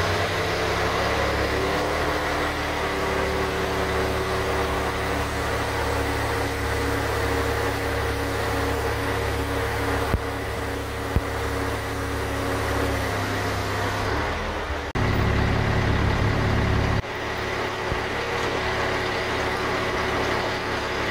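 Crane truck's engine running steadily to drive its Palfinger loader crane's hydraulics, with a droning engine note that steps up about a second in. Around fourteen seconds in, the note changes and turns louder and lower for about two seconds before settling back. Two sharp clicks come about a second apart, near the middle.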